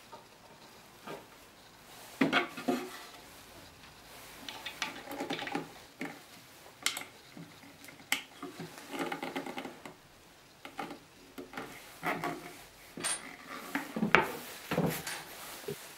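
Light knocks, taps and clicks of a wooden chipboard cabinet door being handled, swung on its hinges and closed against the cabinet, with a sharper knock near the end.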